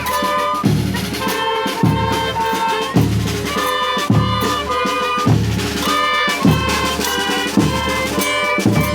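Band brass (trumpets and trombones) playing a tune over drums, with a heavy low drum beat about once a second.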